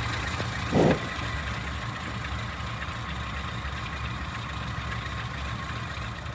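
1957 Land Rover 109's 2-litre four-cylinder petrol engine idling steadily on its freshly rebuilt carburettor. A brief louder sound cuts in about a second in.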